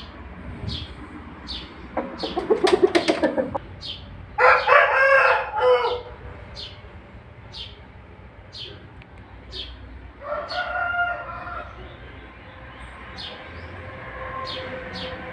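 Aseel rooster crowing: one strong call of about a second and a half, about four seconds in, then a second, fainter crow about ten seconds in. Just before the first crow comes a rapid run of pulses, and a small bird's high chirp repeats about once a second throughout.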